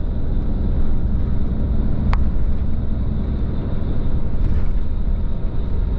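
Steady low rumble of a moving bus heard from inside the cabin: engine and road noise, with a single short click about two seconds in.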